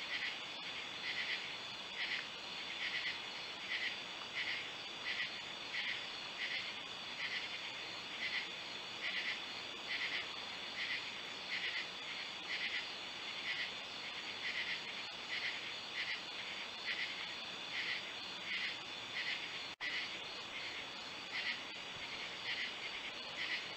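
Night insect chorus: a steady high trill with a regular pulsing call repeating about one and a half times a second. It drops out for an instant about 20 seconds in.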